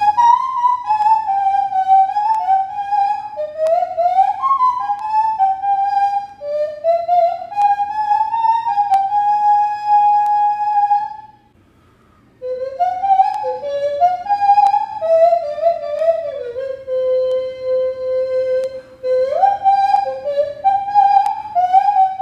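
Nose flute playing a solo melody, a pure whistling tone that steps and slides between notes with several long held notes. About halfway through it stops for about a second, then the tune carries on.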